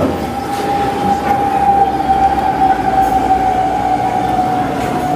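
A long, steady whistle-like tone that sinks slowly in pitch, over a background of rumbling street noise.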